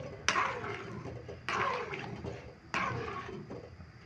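A spoon stirring soaked rice through boiling water in a kadhai: three strokes about a second apart, each starting sharply and fading away.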